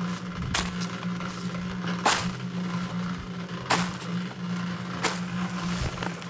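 A cement mixer running steadily in the background, with four sharp snaps about one to one and a half seconds apart as dried, cracked clay crust is broken and peeled up by hand.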